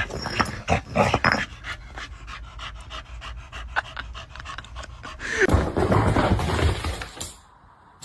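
A dog panting quickly, several breaths a second. About five seconds in, a louder, different stretch of animal sound takes over, then drops briefly almost to quiet near the end.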